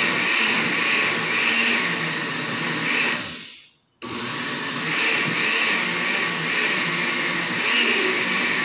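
Synco electric blender running, blending aloe vera pieces with water into juice. It winds down and stops a little past three seconds in, then starts again abruptly about half a second later and keeps running.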